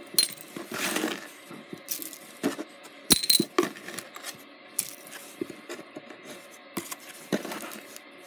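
Small pieces of costume jewelry, metal earrings and glass-bead pieces, clinking and jangling as they are taken out of the box and dropped onto a pile. The clicks come irregularly, with a few louder clinks among softer ones.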